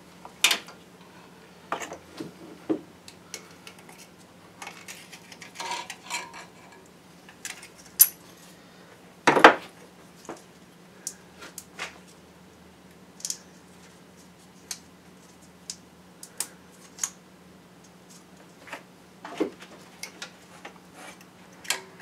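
Scattered small metallic clicks and clinks of hand tools and wiring connectors being handled on an engine, with one sharper knock about nine seconds in. A faint steady hum runs underneath.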